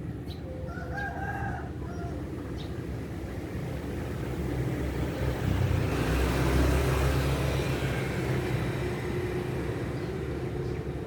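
A rooster crows once, a short call about a second in. Then a passing vehicle swells to a low rumble, loudest just past the middle, and fades.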